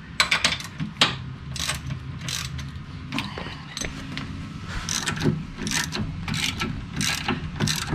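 Ratchet wrench clicking in short runs as it is worked back and forth on the adjusting bolt of a heavy-duty lathe levelling foot, lowering that end of the lathe to bring it level.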